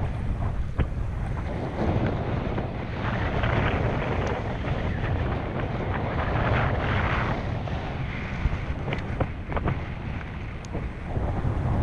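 Wind buffeting the microphone over choppy water from an open skiff, a steady rough rush with a few faint clicks.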